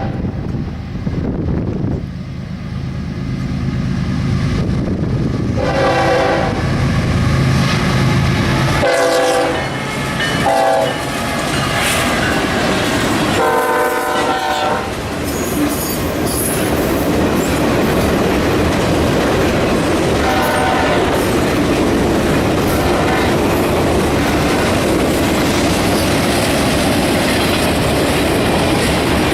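Freight train locomotive sounding its multi-chime air horn in four blasts, the last the longest, as the train passes close by. The horn gives way to a steady rumble and the clickety-clack of the freight cars rolling over the rails.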